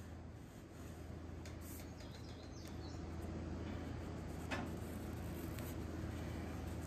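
Faint rubbing of a cloth rag wiping grime off a plastic oil filler cap, over a steady low hum, with one small click about four and a half seconds in.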